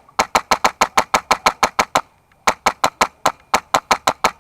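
Airsoft rifle firing rapid strings of shots, about eight sharp cracks a second, in two strings with a brief pause about two seconds in.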